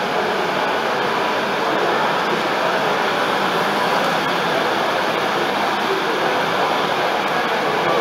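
Steady running noise of a model railway, a model Class 56 diesel locomotive travelling along the layout's track, over the even background hubbub of an exhibition hall.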